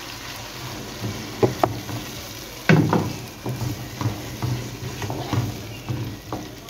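Wooden spoon stirring cauliflower florets and potato chunks through sizzling masala in a wok, scraping and knocking against the pan over the steady sizzle of the oil. A couple of knocks come about a second and a half in, and steady stirring strokes start just under three seconds in.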